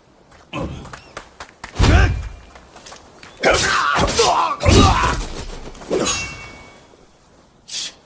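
Spear-fight sound effects: a series of about six heavy thuds and whacks, with a longer, harsher clash in the middle.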